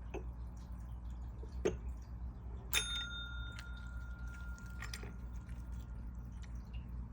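A single light metallic clink about three seconds in that rings on as a clear tone for about three seconds, among a few soft clicks and knocks, over a steady low hum.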